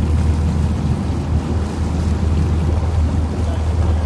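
2002 Regal 4120 Commodore cruiser running under way: a steady low engine drone, with water rushing along the hull and wind on the microphone.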